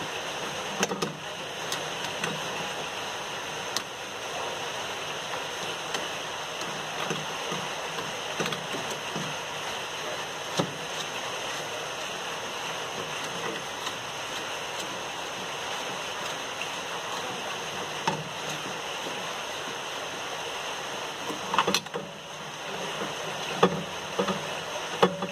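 Steady rush of water running in a Sanyo washing machine, with a few light clicks and knocks, more of them near the end.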